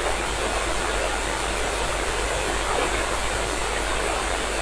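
Steady radio hiss from a software-defined radio receiver tuned to the International Space Station's 2-metre amateur downlink near 145.800 MHz, with no voice on the channel between transmissions.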